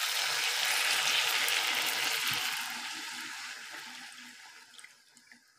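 Cold water poured into a hot wok of fried meat and spice paste, hissing and sizzling as it hits the pan. The hiss dies away steadily over the last few seconds.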